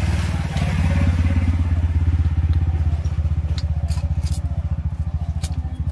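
A small engine running steadily at idle, a low putter with a fast, even beat. A few light clicks come in the second half.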